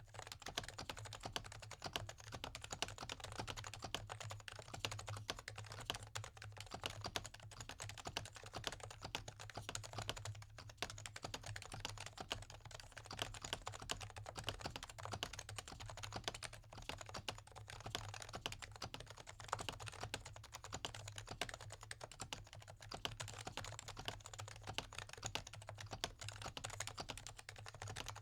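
Continuous fast typing on a Topre electrostatic-capacitive keyboard (Realforce RF84S) with lubed purple sliders, silencing rings and 45 g rubber domes: a dense, steady run of muted keystrokes that starts abruptly.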